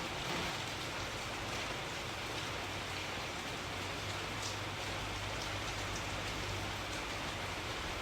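Steady rain falling, an even, dense hiss with a few faint drop ticks.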